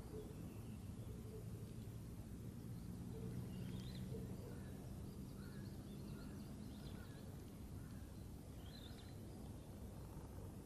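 Quiet outdoor ambience: a steady low distant hum, with a few faint, short bird chirps scattered through it.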